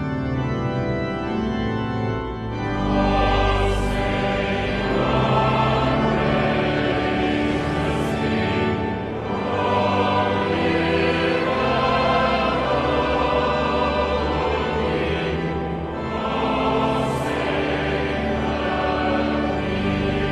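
A choir singing with pipe organ accompaniment, sustained chords that swell fuller about two and a half seconds in.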